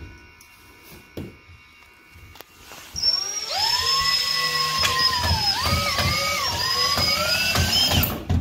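Cordless variable-speed drill driving a drywall screw into a wooden stretcher frame. A few light knocks of wood being handled come first. About three seconds in the motor whine starts and rises, dips in pitch several times as the screw bites, then cuts off just before the end.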